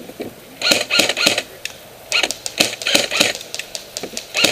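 Airsoft MP5 firing in short irregular bursts of sharp clicking shots, starting about two-thirds of a second in and recurring through the rest.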